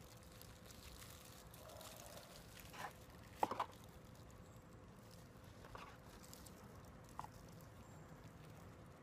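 Faint rustling and crinkling of plastic packaging being pulled off a smartphone by hand, with a few sharper crackles, the loudest cluster about three and a half seconds in.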